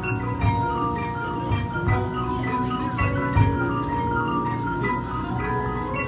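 High school marching band playing, led by the front ensemble's marimbas and other mallet percussion: quick struck notes over long held notes, with a few low hits.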